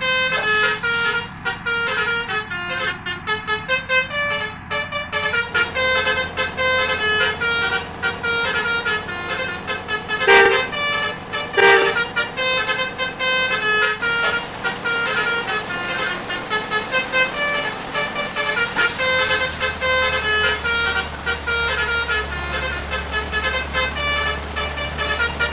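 Basuri multi-tone musical air horns on buses playing a fast 'telolet' tune of short notes. Two louder horn blasts come about ten and twelve seconds in, and a low engine hum joins in near the end.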